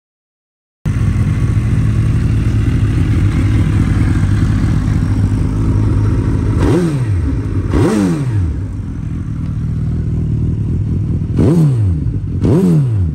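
2010 Suzuki GSX1300 B-King's inline-four engine idling through its aftermarket Yoshimura silencers. It is blipped four times, in two pairs a few seconds apart, each time the revs shooting up and dropping straight back to idle.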